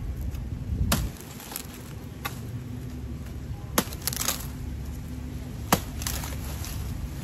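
Machete blade chopping through the stalk of a green banana bunch: about four sharp chops a second or two apart, with lighter knocks between.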